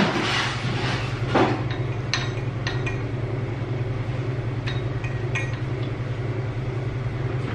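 Metallic clinks and knocks as a springer front fork is handled and fitted to a motorcycle frame's steering neck: a loud knock about a second in, then several lighter ringing clinks, over a steady low hum.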